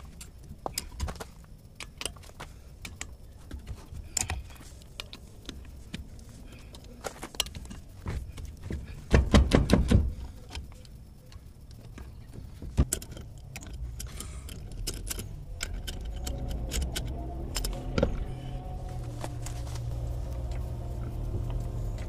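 Hand wrench clinking and clicking on the steel wheel bolts of a 1967 VW Bus front wheel as they are loosened, with a loud run of rapid clicks about nine seconds in. A low hum builds in the background over the second half.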